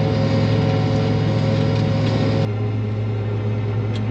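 Combine harvester engine running steadily, heard from inside the cab as an even hum. About two and a half seconds in, the higher part of the sound drops away suddenly and a lower, steadier hum carries on.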